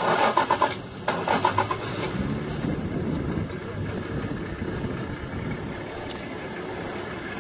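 Safari vehicle's engine running steadily, with indistinct voices in the first couple of seconds.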